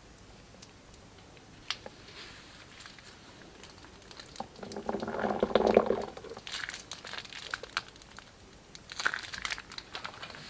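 Slime being handled for ASMR: crinkling, crackling and sticky clicking, with one sharp click early and the loudest, squishier stretch about halfway through, followed by further bursts of crisp crackles.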